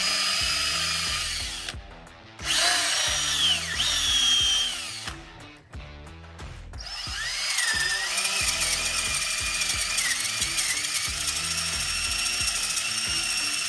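Power drill driving a freshly sharpened spade bit into a block of ipe hardwood, in three runs: a short one at the start, another about two seconds in, and a long one from about seven seconds in. The motor's whine sags in pitch as the bit bites into the wood. The resharpened bit cuts quite a bit faster.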